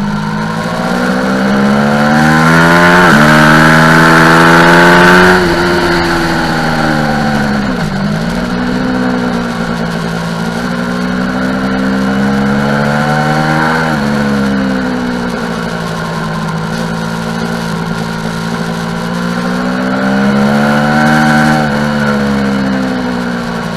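Aprilia Tuono motorcycle engine at full load on track, with the engine note climbing to about 5 s through an upshift near 3 s, where it is loudest. The note drops steeply under braking and downshifts, climbs again to about 14 s, falls, and rises once more before falling near the end.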